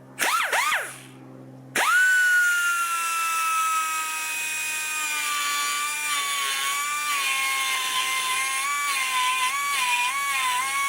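Small high-speed cutting tool briefly blipped twice, then run steadily as a high whine, its pitch sagging and wavering as it bites into the steel of a motorcycle frame to cut off the oil tank supports; it stops abruptly near the end.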